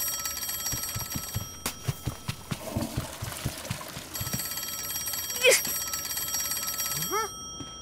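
A steady, high ringing like a telephone or alarm bell. It breaks off for about two and a half seconds after the first second and a half, leaving soft low knocks and a faint hiss, then starts again. Near the end come a few short squeaky rising-and-falling cartoon vocal glides.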